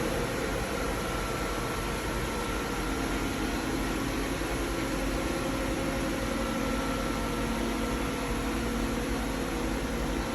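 HNK NT-16/20 CNC vertical boring mill running under power: a steady mechanical hum and hiss with several steady tones, one of them shifting to a lower pitch about three seconds in.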